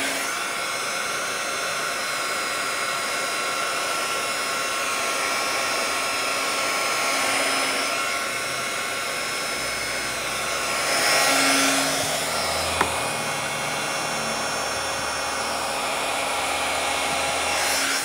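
Hot-air heat gun blowing steadily on heat-shrink tubing over a soldered wire splice: an even hiss with a faint whine, swelling briefly when the nozzle is moved. There is a single sharp click about two-thirds of the way through.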